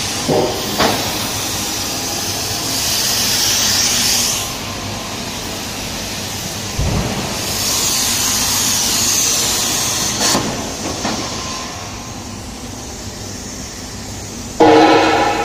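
Plasma cutting torch cutting a steel pipe: a steady hiss of the arc and compressed air, growing louder and sharper for a few seconds twice as the arc cuts, with a few clicks and a short thump. Near the end a sudden loud buzzing tone starts.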